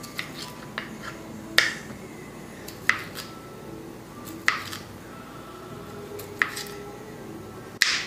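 Kitchen knife cutting a calabresa sausage on a white cutting board: sharp knocks of the blade hitting the board every second or two, the loudest near the end.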